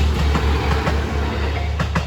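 KiHa 200 series diesel railcar passing close by, its wheels clattering over the rail joints, with a sharp clack near the end.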